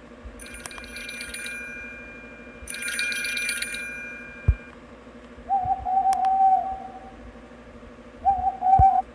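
An electronic alarm sound playing. Two bursts of shimmering high chimes are followed by two warbling, hoot-like tones, the second shorter, with a few low thumps in between.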